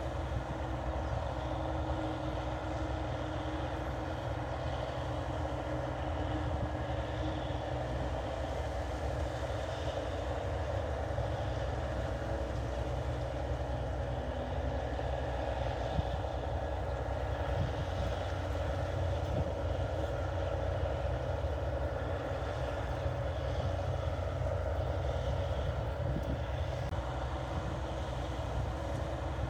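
New Holland 8080 combine harvester running steadily as it cuts and threshes rice, a continuous deep machine hum with no break.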